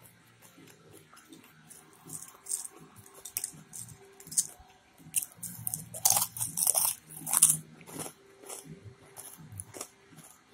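Close-up chewing and biting of crunchy food, a run of short crackly crunches that are loudest a little past the middle.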